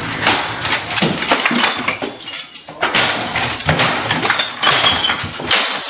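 Computer monitor and desk items being smashed: repeated hard, irregular blows with crashing, breaking and clinking of plastic and glass.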